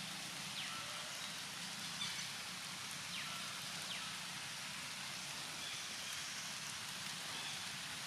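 Steady outdoor hiss with no clear single source, with a few faint, short falling chirps scattered through it.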